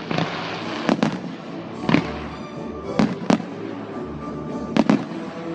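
Fireworks bursting: about six sharp bangs spaced roughly a second apart, two of them coming in quick pairs, over a continuous crackle, with music playing along.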